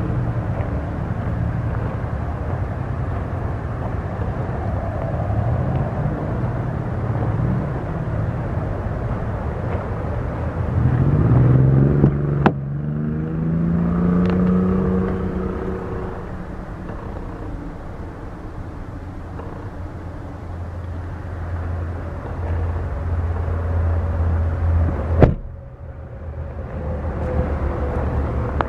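A motor vehicle engine running steadily, rising in pitch about eleven seconds in as it revs or accelerates. Two sharp knocks stand out, one just after the rise and the loudest near the end.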